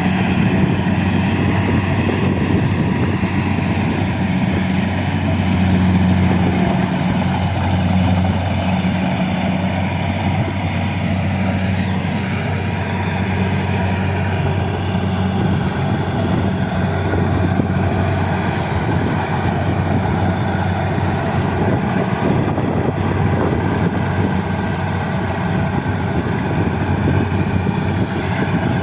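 Kubota combine harvester's diesel engine running steadily through a rice harvest, a constant low drone with machinery noise over it.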